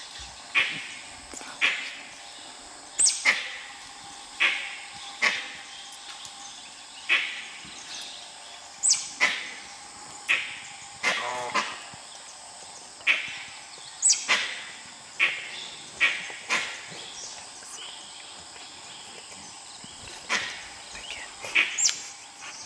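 Dholes giving short, sharp alarm calls at a leopard up a tree. The calls come about once a second, some in quick pairs, several starting high and falling, with a few seconds' pause near the end.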